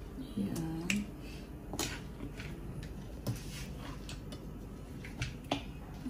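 Several scattered sharp clicks and light taps, a few seconds apart, over low room noise.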